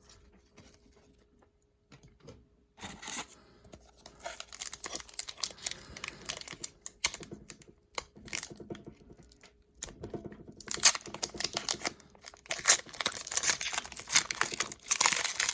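Plastic foil wrapper of a hockey card pack crinkling and being torn open by hand, with cards handled. Near quiet for the first couple of seconds, then crackling that grows louder about two-thirds of the way in.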